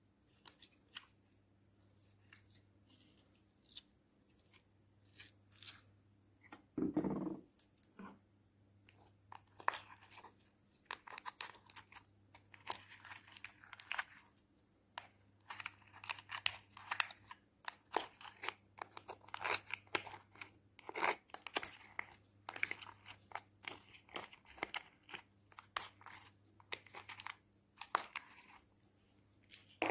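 Sticky slime being worked by hand and squeezed out of a thin plastic cup: irregular crackling, popping clicks, sparse at first and dense through the second half. A single low thump comes about seven seconds in.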